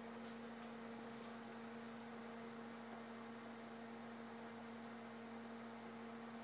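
Faint, steady hum of an electric pottery wheel spinning, with a low hiss underneath and a couple of faint clicks near the start.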